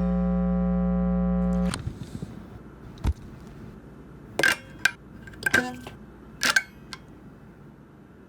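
A steady electronic hum cuts off suddenly, followed by a low thump and a few sharp clicks and knocks, some in quick pairs.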